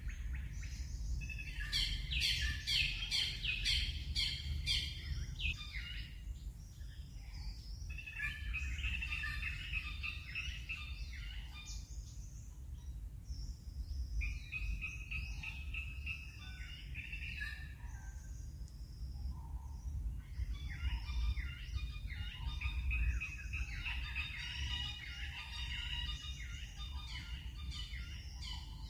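Birds chirping and trilling in short bursts of song, over a low steady rumble.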